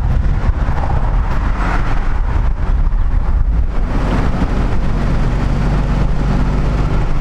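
Engine and road noise of a moving vehicle, heard at an open side window: a steady low rumble with wind rushing past.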